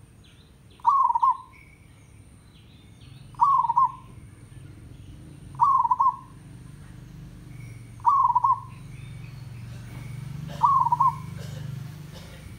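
Zebra dove (perkutut, merbok kampung) giving its tandang call: five short trilled coos, about one every two and a half seconds. A low hum swells in the background over the second half.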